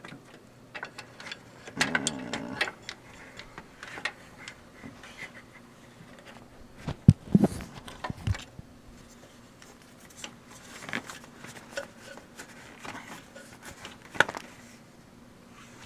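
Handling noises from wiring work in an engine bay: scattered clicks and rustles of a wire harness and plastic parts being pushed through a flap and routed. A few louder knocks come about seven to eight seconds in.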